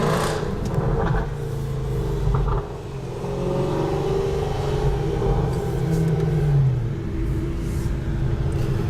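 Overfinch-modified Range Rover SVR's supercharged V8 pulling hard with its valved exhaust open in loud mode, heard from inside the cabin. The engine note holds high, then falls in pitch about six to seven seconds in as the revs drop.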